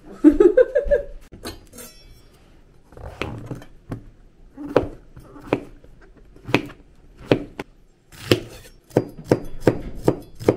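A brief voice sound at the start, then a kitchen knife chopping on a cutting board in single strokes, about one a second at first and quicker near the end.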